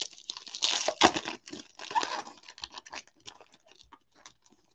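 Foil wrapper of a 2020 Donruss football trading card pack being torn open and crinkled by hand. The crackling is loudest in the first two seconds or so, then thins to light rustles and small clicks.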